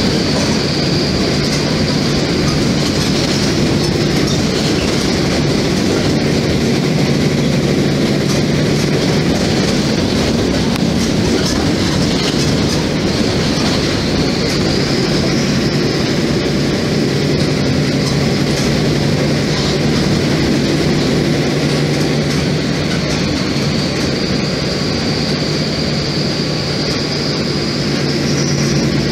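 Mercedes-Benz OF-1724 BlueTec 5 bus's diesel engine running steadily while cruising, heard from inside the passenger cabin along with road noise. A higher whine slowly rises and falls a few times.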